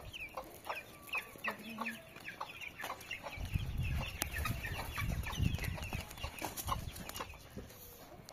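Barnyard fowl chirping and clucking in a dense stream of short chirps, with a low rumble from about three and a half to six seconds in.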